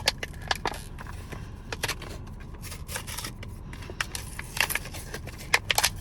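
Irregular small clicks and light scrapes of a Klein 11-in-1 HVAC multi-bit screwdriver being handled, with a quick cluster of clicks near the end. A steady low hum runs underneath.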